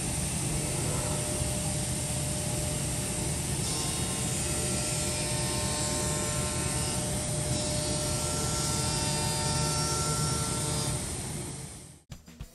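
CNC machining center cutting an aluminium engine block under flood coolant: steady spindle and cutting noise with a hiss of coolant spray and a few steady whining tones, fading out near the end.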